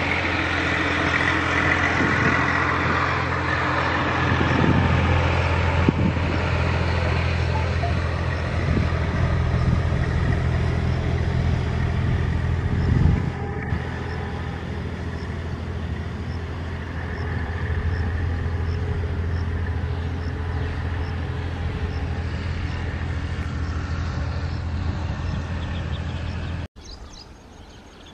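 Diesel locomotive engine running with a steady low hum. It eases off a little about thirteen seconds in and cuts off suddenly near the end.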